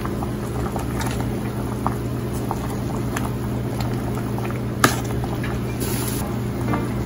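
A metal ladle stirring simmering winter melon soup in an aluminium pot, clinking against the pot a few times, loudest about five seconds in, over a steady low hum.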